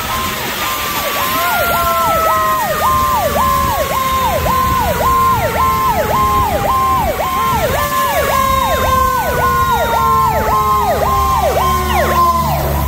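Emergency vehicle siren sounding in a fast repeating cycle, about two a second, with a second long tone sliding slowly down in pitch. A heavy vehicle's low engine rumble grows louder near the end, over a constant hiss of rain and road spray.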